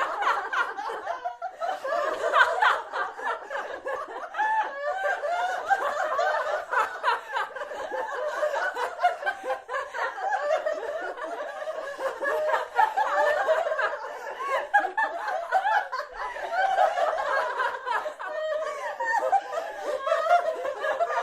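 Human laughter: people laughing and chuckling without a break, with several laughs overlapping.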